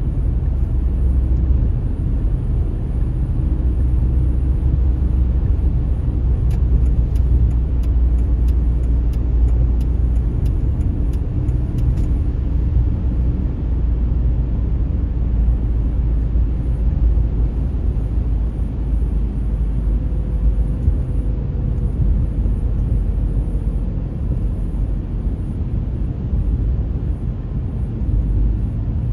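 Steady low rumble of a car driving through a road tunnel: engine and tyre noise heard inside the cabin. Faint ticking at about two a second runs for several seconds a quarter of the way in.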